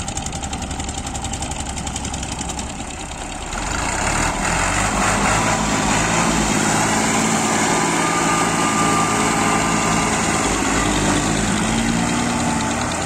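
Al Ghazi farm tractor's diesel engine running with a fast, even pulse. About three and a half seconds in it gets louder and stays up as the tractor pulls away.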